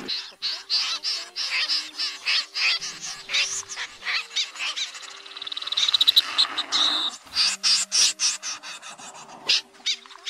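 Snipe calls played as a trapping lure: short calls repeating about three times a second, with a faster, rising run of calls in the middle that peaks about six seconds in.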